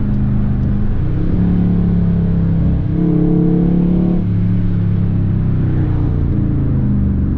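Dodge Charger R/T's 5.7 Hemi V8 exhaust heard from inside the cabin, with the active exhaust valve held open in track mode. The engine runs steadily under light throttle. Its pitch steps a few times and it swells louder for about a second around three seconds in.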